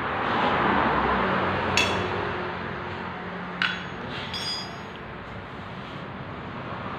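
Metal tools and parts clinking during motorcycle sprocket and chain work: two sharp clinks about two seconds and three and a half seconds in, then a brief ringing metallic jingle, over a steady workshop hiss.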